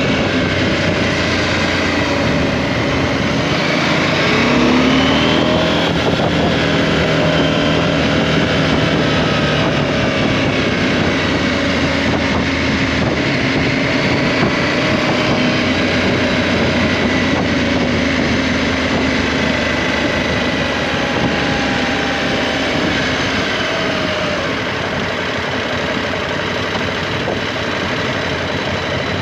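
KTM 790 Adventure's parallel-twin engine running on the move, its pitch rising and falling with the throttle about four to seven seconds in and steadier after. A steady rush of wind noise runs under it.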